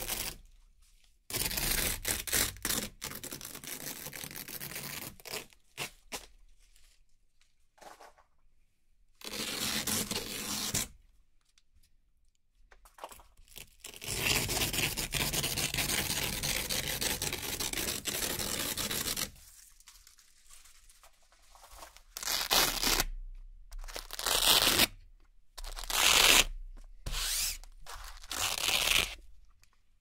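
Velcro hook-and-loop strips being peeled apart in a series of tearing rips with pauses between: several over the first ten seconds, one long rip of about five seconds near the middle, and shorter, sharper ones near the end.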